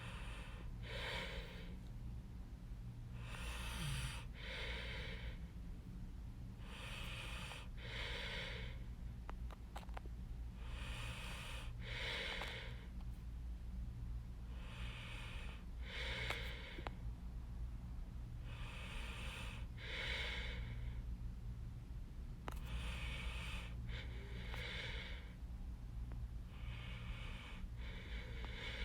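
A person breathing close to the microphone, in and out about once every four seconds, over a steady low hum.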